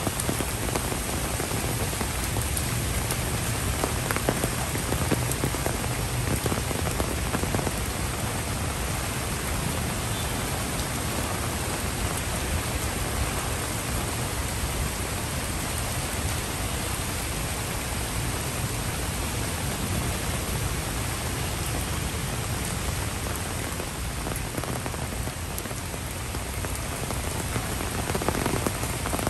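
Heavy rain falling steadily on tropical foliage, brick paving and the surface of a pond: a dense, even hiss of drops that does not let up.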